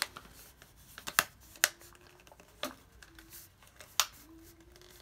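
A handful of short, sharp clicks and knocks as a paper-wrapped ceramic mug is handled and set into a mug heat press.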